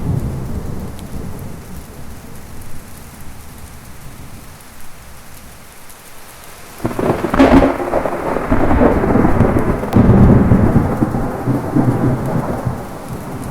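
Heavy rain with thunder: a low rumble dies away, then about seven seconds in a sharp thunderclap breaks into loud rolling thunder, which surges again a few seconds later and slowly eases off.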